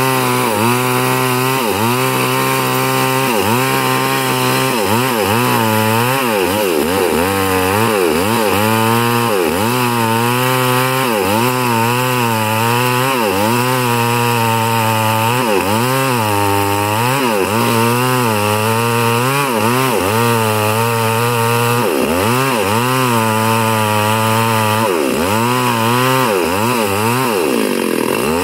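Two-stroke chainsaw running at full throttle, ripping lengthwise through a very large log. The engine pitch dips under load and climbs back again and again, every second or two, as the bar is worked through the cut.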